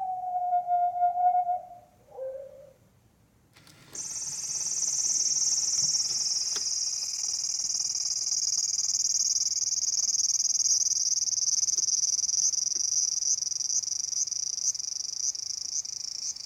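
Recorded sound effects played back from a model diorama. A siren-like tone slides down, holds and fades out about two seconds in. From about four seconds in a steady, high-pitched insect chorus of cicadas or crickets takes over, with regular chirps near the end.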